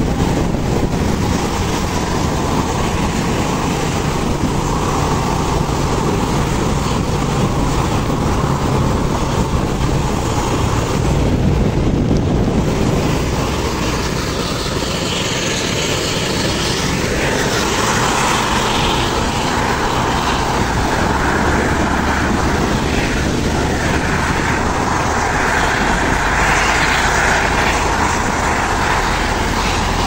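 Heavy-vehicle engines droning steadily with tyre and wind noise, heard from a moving vehicle close behind a bus and a truck on an uphill road.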